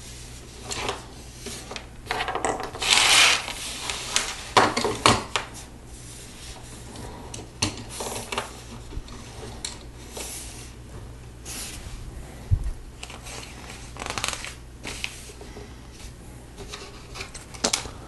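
Plastic Lego bricks being handled and pressed onto a model: irregular clicks and rubbing scrapes, busiest a few seconds in.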